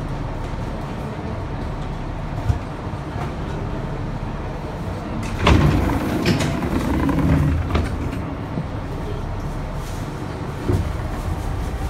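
Steady low rumble inside a Bombardier-built R62A subway car on the move. About five and a half seconds in comes a louder stretch of clatter and rattling that lasts around two seconds.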